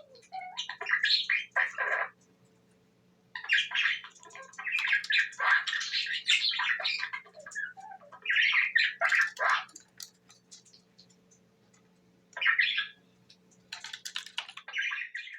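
Budgerigar chattering: rapid chirps and squawks in several bursts with short pauses between, over a faint steady hum.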